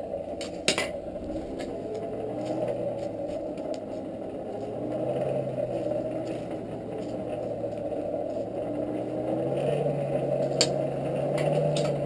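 Hand-cranked forge blower whirring steadily, its low hum drifting up and down with the cranking speed as it blows air into a coal forge fire. A few light clicks sound over it.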